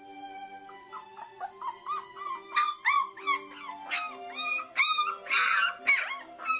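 Three-week-old puppy whining and yelping in a rapid string of short, high cries that get louder from about a second in, with one harsher squeal a little past the middle.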